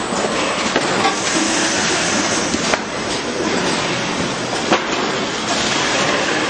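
Automatic carton packing line running: the roller conveyor and carton-handling machine give a steady mechanical clatter, with a couple of sharp clicks a few seconds apart.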